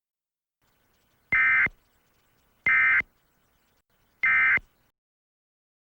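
Three short Emergency Alert System end-of-message data bursts: harsh buzzy squawks, each about a third of a second long, about a second and a half apart. They signal the end of the alert transmission.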